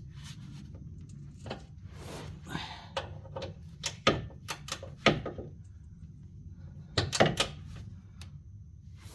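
Scattered metallic clicks and clunks of a torque wrench and tools being worked on a bolt of a Fiat 500's front lower control arm as it is tightened to spec. The loudest clunks come in a cluster about seven seconds in.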